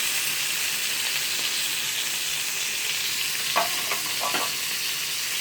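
Chicken piece frying in hot oil in a frying pan, a steady sizzle with the oil spattering heavily.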